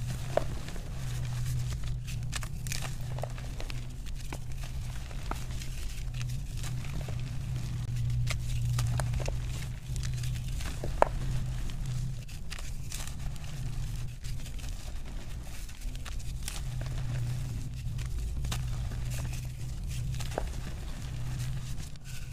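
Black-dyed gym chalk being crumbled and broken apart by hand: scattered dry crackles and crunches. A steady low hum runs underneath.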